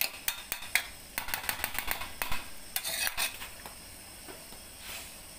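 A metal spoon scraping and clinking against a steel wok as a noodle stir-fry is tossed. There is a rapid run of clicks and scrapes for about three seconds, after which it goes quieter.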